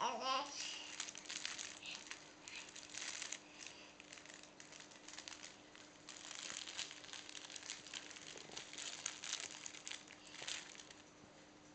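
Soft fabric crinkle toy crinkling and rustling in irregular bursts as a baby grabs and pulls at it, with a short baby vocal sound right at the start.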